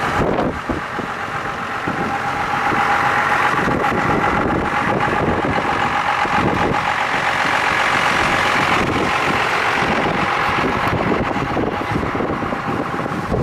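Pickup truck driving on the highway, heard from inside the cab: steady engine and road noise.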